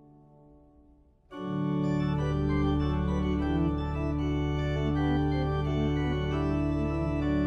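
Organ music. Faint held notes, then a second or so in, a full chord with a deep bass note enters and is held, with the upper notes changing slowly.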